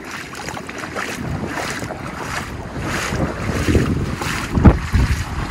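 Footsteps wading and splashing through shallow floodwater, about one stride every two-thirds of a second, with wind buffeting the microphone. A heavier, low splash comes about four and a half seconds in.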